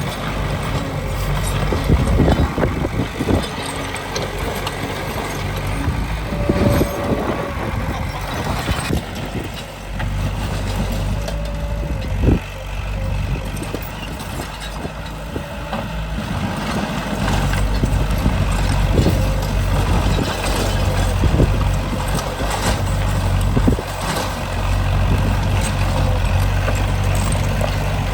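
Heavy diesel earthmoving machinery working: the low engine note of a bulldozer and dump trucks rises and falls under load. Occasional knocks and clanks are heard throughout.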